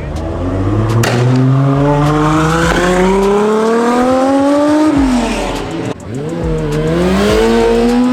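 A 2JZ-swapped Lamborghini's Toyota inline-six engine revving hard, its pitch climbing steadily for about five seconds, then falling away, and climbing again near the end.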